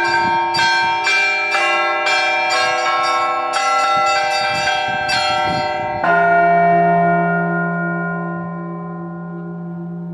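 Russian Orthodox church bells rung by hand: the smaller bells struck in quick succession, about two strokes a second, then about six seconds in a final stroke joined by a deeper bell, after which all ring out and slowly fade.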